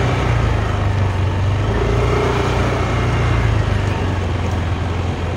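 Yamaha Mio Aerox 155 scooter's single-cylinder engine running steadily while riding, under a steady rush of road and wind noise.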